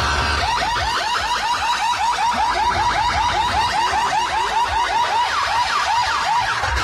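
Electronic horn sound effect played at high volume through a large DJ sound system: a fast, even run of short rising whoops, about four or five a second. The bass drops out just after the start, and some falling sweeps join in higher up near the end.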